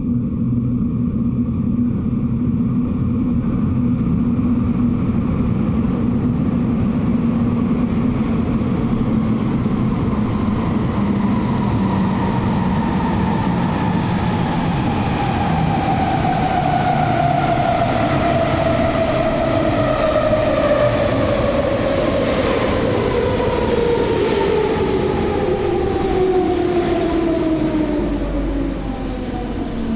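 Metro train running on the rails with a steady rumble. About ten seconds in, an electric motor whine rises out of the noise and falls steadily in pitch as the train slows.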